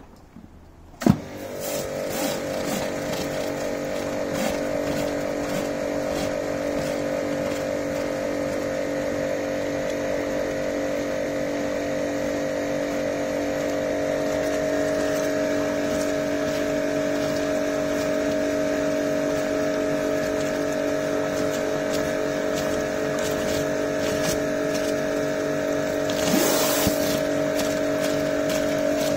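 Kärcher K5 Compact pressure washer starting with a sharp click about a second in, then its motor and pump running steadily with a hum. The rotary surface-cleaner attachment sprays water onto the paving with a steady hiss, and there is a brief louder rush of spray near the end.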